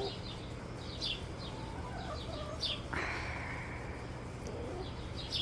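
Backyard hens clucking quietly, with short high chirps repeating throughout and a harsher, raspy sound about three seconds in.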